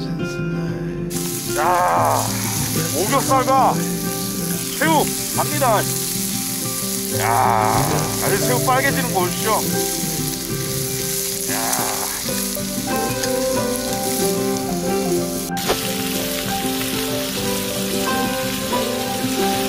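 Pork belly and octopus sizzling and frying on a hot griddle pan, a steady hiss that starts about a second in, with background music underneath.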